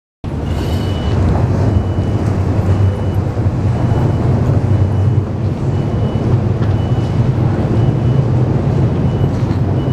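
Railway station concourse ambience: a steady low rumble under a wash of background noise, with faint short high beeps repeating at irregular intervals.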